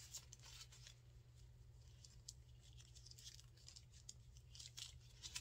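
Faint, scattered crinkling and rustling of thin plastic protective film being peeled off a bag charm by hand, over a low steady hum.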